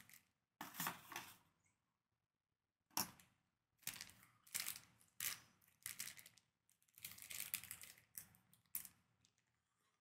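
Clear plastic packaging bag crinkling and rustling as a USB cable is handled and unwrapped inside it, in irregular short bursts with brief pauses between them.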